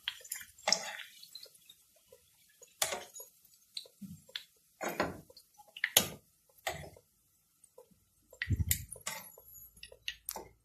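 Metal kitchen tongs clicking and tapping against a nonstick frying pan and plate as fried potato slices are lifted out of the oil, a dozen or so separate taps with quiet between them and a heavier knock near the end.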